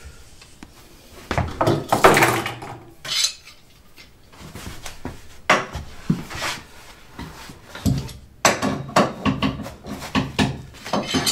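Metal sliding bar clamps clanking and rattling as they are slid along their bars and tightened onto a wooden board, with knocks against the board and bench. There are irregular clusters of clatter, with a run of quick knocks near the end.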